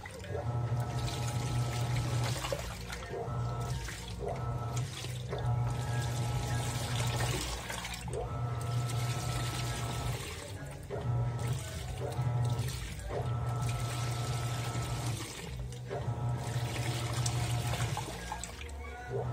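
Panasonic NA-F160B5 top-loading washing machine agitating a full load of T-shirts. Its motor hums and whines in repeated strokes of one to two seconds, with short breaks between them, over sloshing water.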